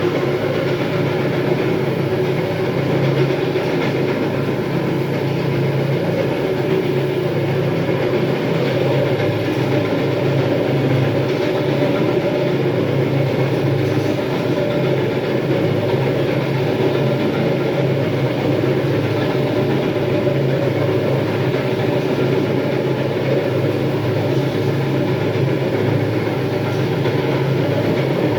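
Electric terrazzo grinder running steadily as it grinds and polishes the floor: a steady low hum under a rough grinding noise, unchanging throughout.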